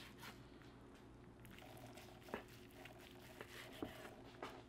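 Near silence over a faint steady room hum, with a few faint light taps and crackles as a knife slices through the crusted bark of a smoked beef brisket on a wooden cutting board.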